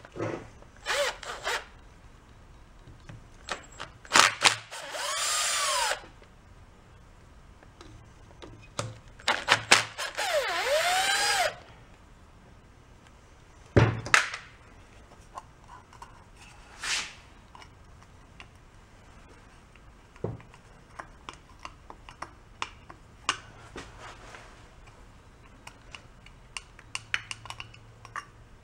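Cordless driver run twice, for about two seconds each, about four and about ten seconds in, its motor pitch rising and falling as it backs out the screws of an old tiller engine's points cover. Around the runs, scattered clinks and knocks of metal parts and tools being handled, with one sharp knock about fourteen seconds in.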